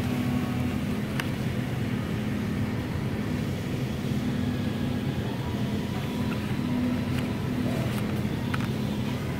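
Steady low background hum, with a few faint ticks of small cardboard candy boxes being handled on a shelf, two of them near the end.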